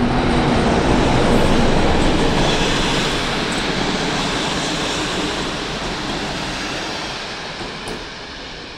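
Locomotive-hauled passenger coaches rolling past close by: a loud rumble and rattle of wheels on rail that is loudest a second or so in, then fades as the last coach moves away.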